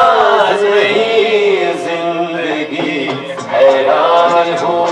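A man singing a song into a handheld microphone.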